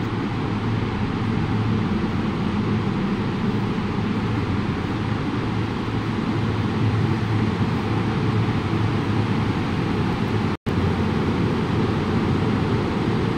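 Steady mechanical drone of machinery running in a factory, a low hum under an even hiss, with a split-second drop-out to silence about ten and a half seconds in.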